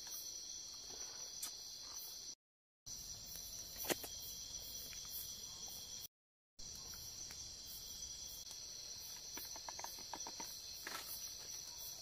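Chorus of night insects in tropical forest: a steady, high-pitched shrill with a faint pulsing above it. A single click comes about four seconds in, and the sound drops out completely twice for a split second.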